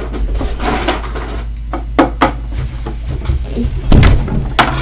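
A few sharp knocks and bumps on a wooden tabletop: two close together about two seconds in, the loudest and heaviest a little before the end, then one more.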